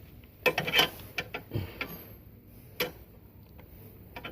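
Irregular metallic clicks and knocks of a manual car jack being cranked up by hand, with a quick cluster about half a second in and a single sharp knock near three seconds.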